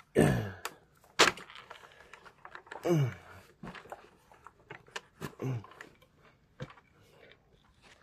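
Scattered plastic clicks and knocks as a Kirby Heritage II Legend's mini motor attachment is worked loose from its hose, with a few short strained grunts.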